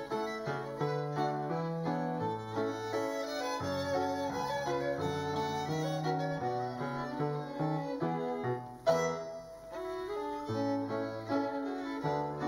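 Violins and piano playing a piece live in a large hall, with sustained bowed notes over a moving bass line. A single sharp knock sounds about nine seconds in, louder than the music.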